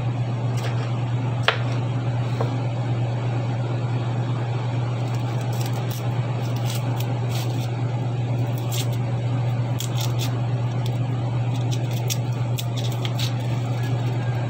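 Kitchen knife chopping onion on a wooden cutting board: light, irregular taps that come thicker in the second half, over a steady low hum.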